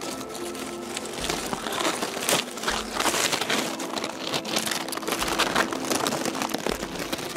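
Dry fallen oak leaves crackling and rustling close to the microphone in dense, irregular crisp bursts, louder from about a second in. Faint music runs underneath.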